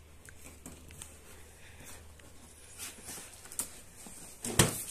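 Cardboard jigsaw puzzle pieces being picked up, shuffled and pressed together on a plastic tabletop: light scattered clicks and taps, with a sharper knock near the end.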